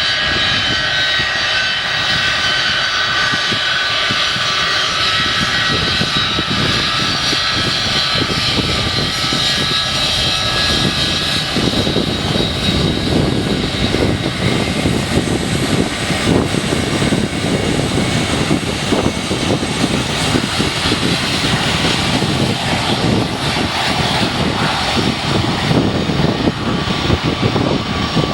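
Jet airliner engines running loud and steady, with a high whine of several steady tones. About halfway through, a heavier, crackling low rumble builds underneath.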